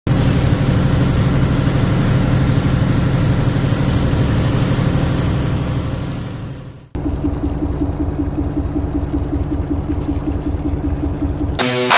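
A fishing boat's engine running steadily, in two shots joined by a sudden cut about seven seconds in; the second shot has an even, pulsing engine note. Guitar music starts just before the end.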